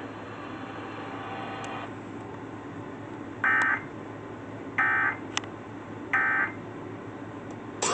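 Emergency Alert System end-of-message signal: three short, buzzy bursts of SAME digital data tones, a little over a second apart. They mark the end of the alert broadcast.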